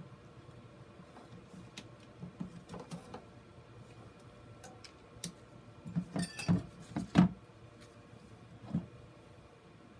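Handling noise from working at a plastic grid mounting board with fishing line and tools: light rustling and scattered clicks, with a quick run of sharper clicks and knocks about six to seven seconds in, the last of them the loudest.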